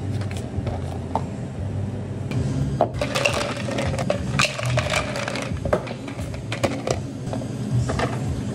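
A lid is pressed onto a plastic iced-drink cup with a few light clicks. Then ice cubes are scooped and tumbled into clear tumblers, clattering and clinking densely for a few seconds. Near the end, liquid is poured from a metal pitcher over the ice. A steady low café machine hum runs underneath.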